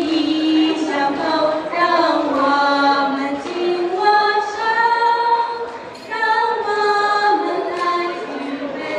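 Girls singing together unaccompanied into a microphone, in long held notes, with a short break for breath about six seconds in.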